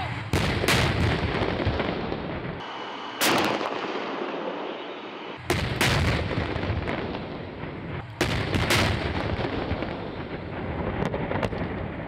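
Gunfire: sharp shots every two to three seconds, several coming in quick pairs, each trailing a long rolling echo, with fainter shots near the end.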